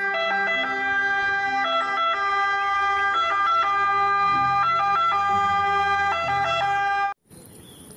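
Italian ambulance siren sounding its two-tone call, switching back and forth between a higher and a lower pitch. It cuts off suddenly about seven seconds in.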